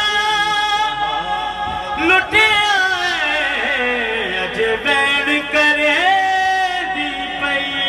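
Male voice singing a noha, a Shia lament, unaccompanied into a microphone, in long held notes with slow glides that sink downward at the ends of lines.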